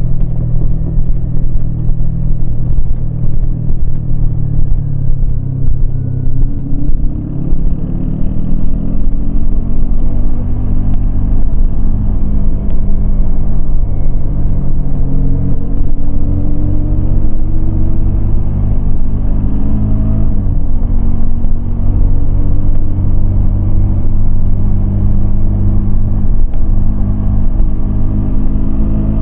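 Yamaha MT-25's 249 cc parallel-twin engine running under way. The revs climb several times as it pulls through the gears, with a sharp drop about two-thirds through.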